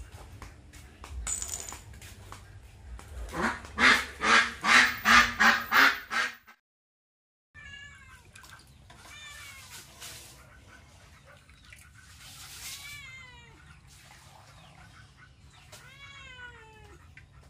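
Domestic animal calls: a quick run of about eight loud calls, then, after a brief gap, scattered short falling chirps.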